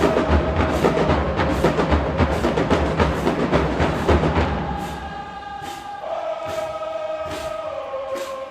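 HBCU marching band playing in the stands: full brass over heavy drums, then about halfway through the drums and low brass drop out and the horns hold sustained chords over a steady tick about twice a second.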